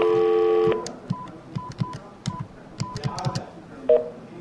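NEC desk telephone: a steady dial tone cuts off under a second in, then about ten quick keypad presses follow, each a click with a short beep, as a toll-free number is dialled. A short two-tone beep comes near the end.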